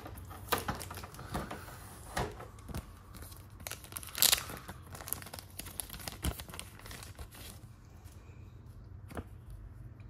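Clear plastic packaging bag crinkling and rustling as it is handled and pulled open, mixed with light clicks and taps from the cardboard box tray. The loudest crinkle comes about four seconds in, and the handling thins out near the end.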